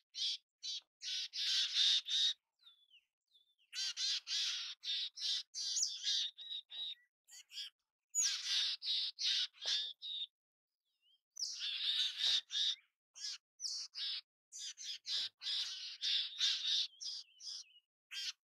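Mountain chickadee calling: quick runs of short, hoarse notes, in several bouts separated by pauses of a second or so.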